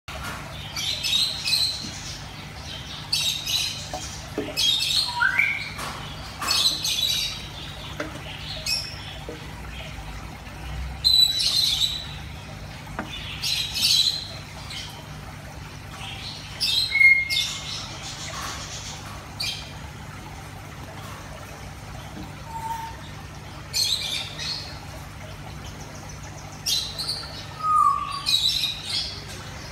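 Birds squawking and chirping again and again in short harsh calls every second or two, over a steady low hum.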